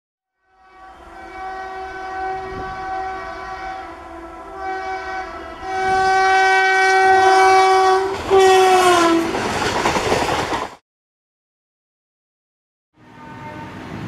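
Electric locomotive horn sounding in three long blasts. The last blast drops in pitch as the locomotive passes and gives way to the loud rush and rattle of the train going by, which cuts off suddenly. Another horn starts near the end.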